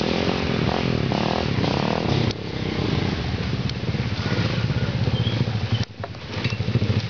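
Trail motorcycle engine running while climbing the muddy track, its revs rising and falling. The sound dips briefly about two seconds in and again near the six-second mark, after which a louder, pulsing engine beat takes over.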